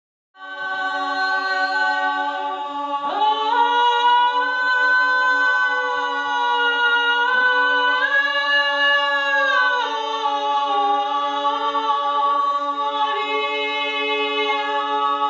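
A cappella vocal ensemble singing long sustained chords over one unbroken low held note. The upper voices move to new chords about three seconds in and again around eight and ten seconds.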